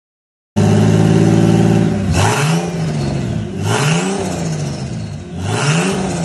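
Turbocharged Ford AU Falcon 4.0-litre Intech inline-six, with a short exhaust coming straight up through the bonnet, idling steadily, then revved three times, each rev rising and falling in about a second. A thin high whistle rises and falls with each rev.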